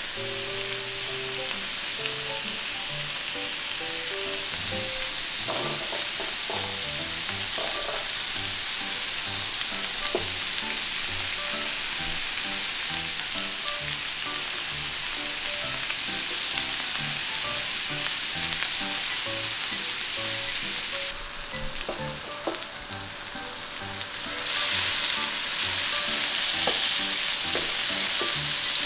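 Pork belly sizzling on a hot grill plate as its fat renders, a steady hiss that grows louder and brighter near the end as the meat crisps. A few light taps come as pieces are placed and turned with tongs.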